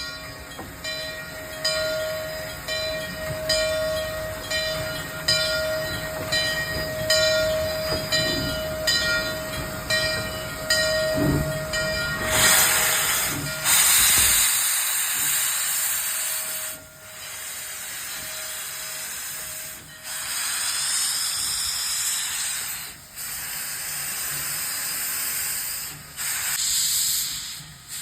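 Steam engine working with a regular chuff of about one and a half beats a second over a steady tone, then loud hissing steam from about halfway through, cut by brief pauses every few seconds.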